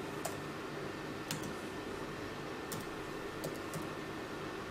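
Laptop keyboard being typed on: about five separate keystrokes, spaced irregularly, over a faint steady hum.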